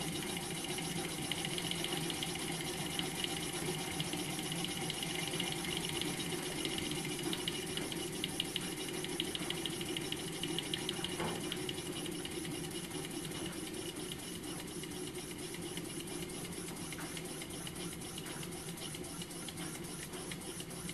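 Home-made rocking-beam model steam engine running on compressed air: a fast, even mechanical clatter from its piston, valving and beam linkage, growing a little quieter toward the end.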